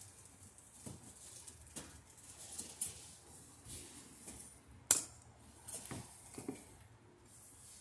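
Small metallic clicks and taps from hands working the light fixture's metal mounting parts, with one sharper click about five seconds in.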